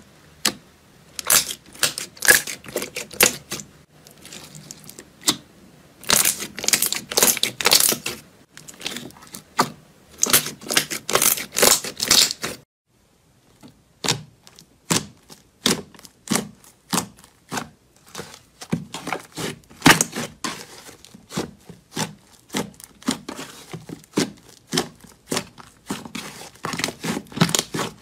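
Hands pressing, poking and squeezing slime, giving quick bursts of sharp crackling clicks and wet pops, with a brief pause about halfway through.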